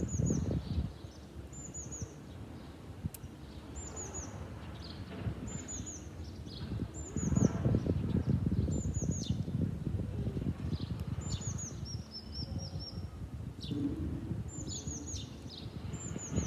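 A small songbird singing a short, high, falling phrase over and over, about once a second or so, over a low rumbling noise that is loudest about halfway through.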